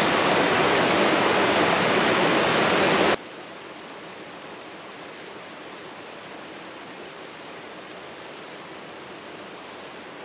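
Rushing mountain stream, water tumbling over rocks, loud and close. About three seconds in it cuts suddenly to a much fainter, steady rush.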